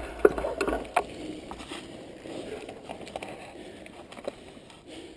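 Mountain bike rolling slowly over a dirt trail: a few sharp rattling knocks in the first second, then faint rolling noise with small scattered clicks. Wind rumbles on the microphone at the start and fades within the first second.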